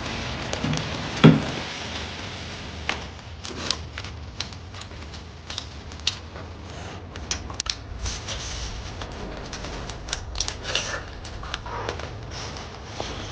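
Utensils clicking and tapping irregularly against dishes, with one heavier knock about a second in.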